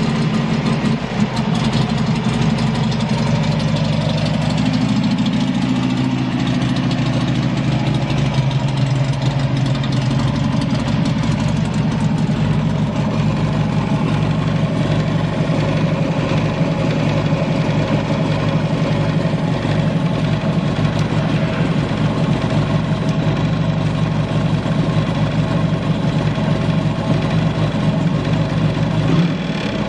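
Buell XB9R Firebolt's air-cooled V-twin engine idling steadily, with an even, unchanging beat and no odd noises.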